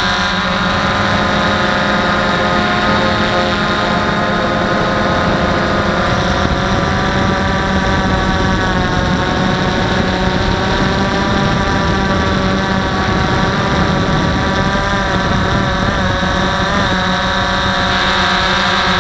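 DJI Phantom 1 quadcopter's brushless motors and propellers running in flight, a steady multi-tone whine heard up close from a camera mounted on the drone. The pitch wavers and glides slightly as the motor speeds shift to steer and hold height.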